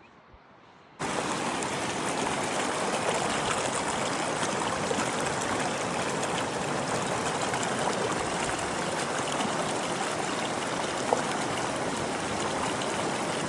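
Rushing water from a mountain stream, a steady full rush that starts abruptly about a second in.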